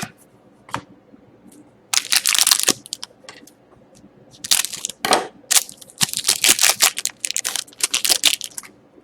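Trading cards and their pack wrapper being handled: several short bursts of rustling paper and plastic, the longest run in the second half.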